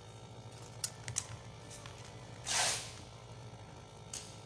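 Soldering at the motor terminal of a heat gun: a few light metal clicks about a second in, then a short hiss about two and a half seconds in, and one more click near the end. A steady low hum runs underneath.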